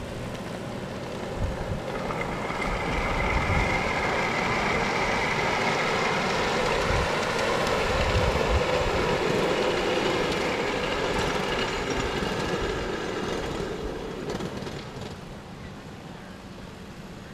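Miniature ride-on passenger train running past over the crossing. It grows louder about two seconds in and fades away near the end.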